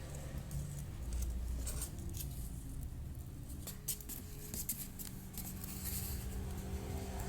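Cardboard being cut and handled: scattered short snips and taps over a low steady hum.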